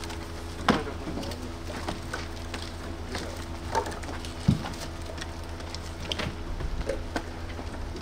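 Split firewood logs knocking and clattering as they are handled and stacked by hand, in irregular wooden knocks roughly once a second, the loudest about halfway through. A steady low hum runs underneath.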